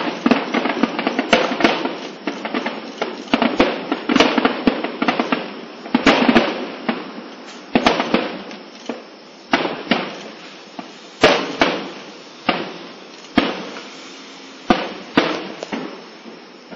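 Aerial firework shells bursting: a dense barrage of bangs over a crackle for the first half, then single bangs about once a second.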